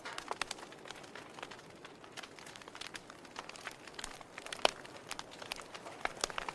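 Wood fire in a fireplace crackling, with irregular sharp pops and snaps over a soft hiss, and one louder pop about two-thirds of the way through.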